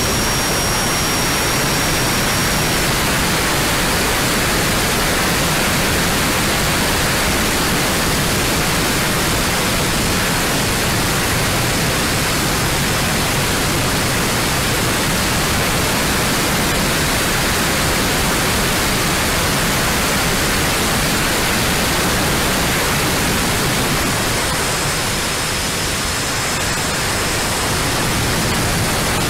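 Steady loud rushing noise of the twin 70 mm electric ducted fans and airflow on an A-10 Warthog RC model jet in flight. It is picked up by the onboard FPV camera microphone and carried over the analog video link, which adds hiss. The noise dips slightly near the end.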